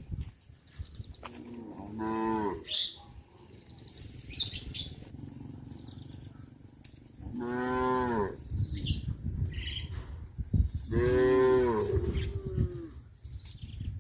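Cattle mooing: three long moos, each bending up then down in pitch. The first is shorter, and the last two are louder.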